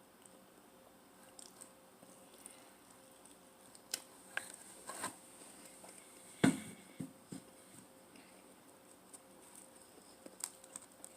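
Faint eating sounds of pizza being eaten: scattered soft clicks and mouth smacks, with one louder knock about six and a half seconds in.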